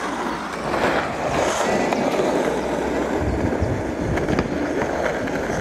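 Skateboard wheels rolling over asphalt, a steady rolling rumble.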